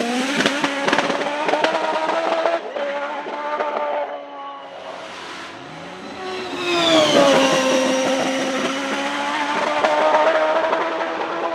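A 1993 Penske-Chevrolet PC-22's 2.65-litre turbocharged Chevrolet V8 running at racing speed. Its note crackles in the first couple of seconds, then fades. It rises as the car comes back into earshot, and the car passes loudly about seven seconds in with the pitch dropping, before a high, steady engine note carries on.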